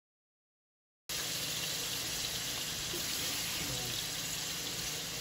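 Shrimp sizzling in melted butter in a stainless steel skillet: a steady hiss that starts abruptly about a second in.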